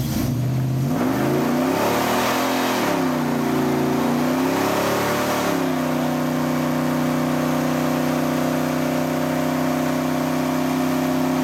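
Pickup truck doing a burnout: the engine revs up and falls back twice, then holds a steady high rev from about halfway through while the spinning rear tyre screeches on the pavement.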